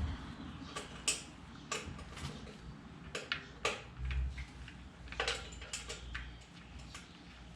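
Irregular light clicks and taps of small parts and tools being handled during motorcycle work, with a dull thump about four seconds in.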